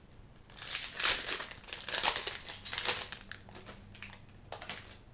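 Foil wrapper of a Magic: The Gathering booster pack crinkling and tearing as it is opened by hand, with several loud crackles between about half a second and three seconds in, then one short rustle near the end.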